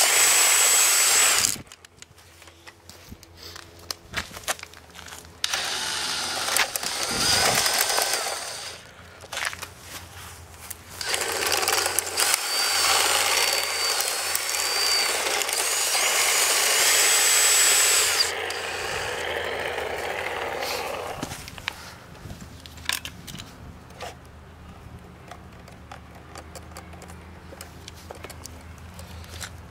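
Cordless drill spinning a string trimmer head, its motor whining and the line whirring through grass. It starts and stops in several bursts, the longest about ten seconds, with a quieter stretch of scattered clicks near the end.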